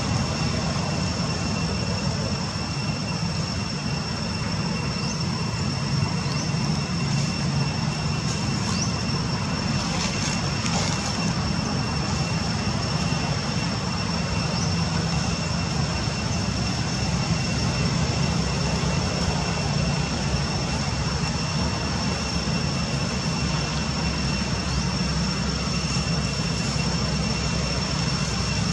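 Steady outdoor background noise: a low, even rumble with a continuous high-pitched whine over it.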